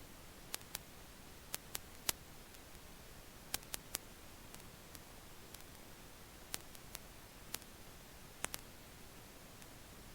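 About a dozen sharp, very short clicks at irregular intervals over a faint steady hiss.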